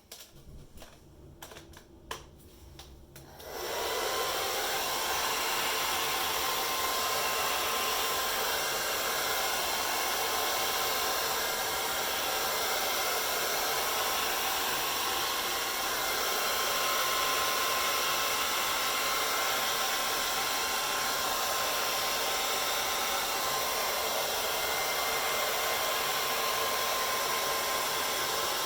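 A few light handling clicks, then a hair dryer switches on about three and a half seconds in and runs steadily: a rush of air with a faint steady whine.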